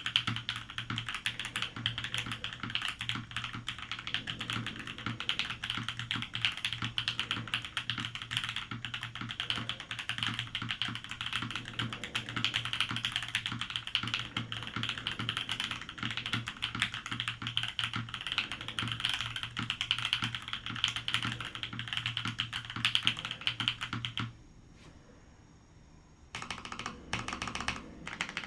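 Fast, continuous typing on a Matrix 1.2og TKL mechanical keyboard with a top-mounted aluminium plate, JWK Opblack switches and BSP PBT keycaps, a really loud board with a beefy bass sound. The typing stops for about two seconds near the end, then resumes with separate, slower keystrokes.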